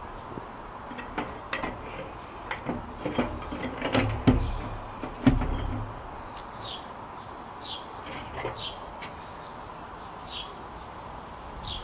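A run of sharp clicks and light metal knocks from hands working at a small folding metal pocket stove, with two heavier knocks about four and five seconds in. In the second half, birds chirp with short falling calls.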